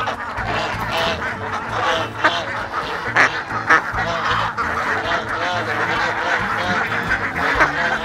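A flock of ducks and geese calling together, many short quacks and honks overlapping without pause.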